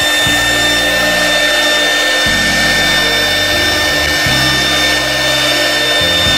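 1325 CNC router spindle running steadily while carving a relief into a wooden board: a constant high-pitched whine over a hiss of cutting.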